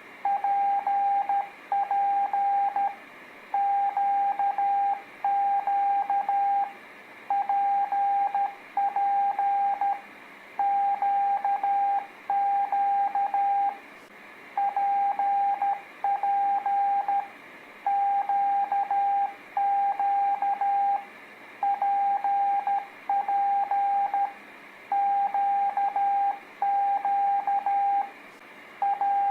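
Morse code (CW) practice tone: a single steady beep keyed on and off into dits and dahs, sending letters one after another in groups with short pauses between them.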